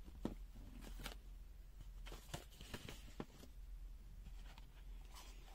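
Faint scattered clicks and light rustling of fingers handling a small plastic multimeter case, over a low room hum.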